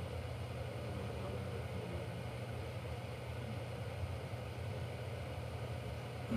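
Steady low hum of room tone, with no speech.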